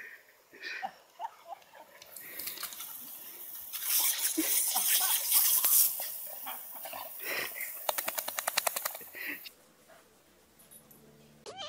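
A lawn sprinkler spraying, heard as a hiss, then rapid regular ticking at about nine ticks a second, the sound of an impact sprinkler's arm. A dog gives a few short high yelps about a second in.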